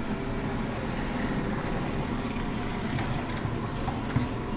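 Hobart V1401 140-quart commercial floor mixer running steadily, its 5 hp three-phase motor and gear drive giving a constant low hum.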